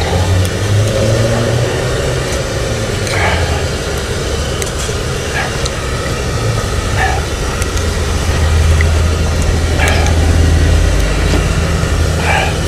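A steady low engine rumble from a running motor vehicle, growing louder about eight seconds in, with a few short faint sounds over it.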